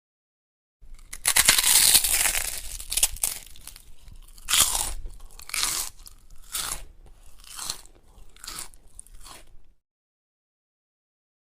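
A bite into something crisp, loud and crunchy for about two seconds, followed by a run of chewing crunches about once a second that stops shortly before the end.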